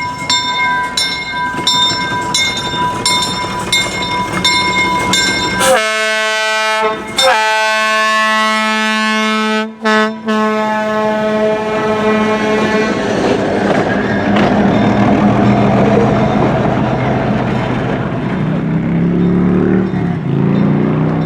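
A bell rings steadily, about two strikes a second. Then the steam whistle of 2-8-2 locomotive No. 16 sounds three blasts, the last two long, followed by the rumble of the train running by.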